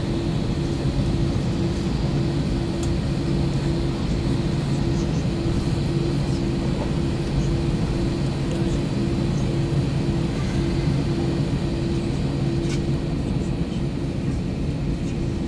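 Cabin noise of an Airbus A321 taxiing before take-off: the jet engines running at low taxi power, a constant hum with a steady low drone, heard from inside the cabin.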